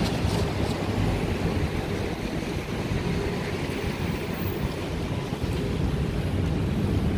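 Steady hiss of rain on a city street mixed with traffic, under a heavy low rumble.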